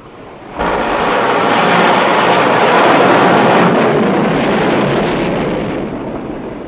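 Jet aircraft engine noise that cuts in abruptly about half a second in, stays loud, then slowly fades over the last few seconds.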